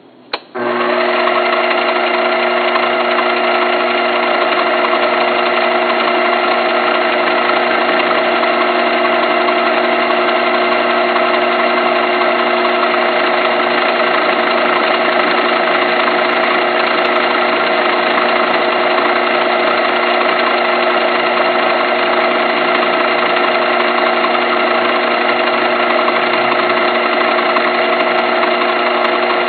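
Small metal lathe switched on with a click about half a second in, then running steadily: a loud, even machine whine of several fixed tones from the motor and gearing.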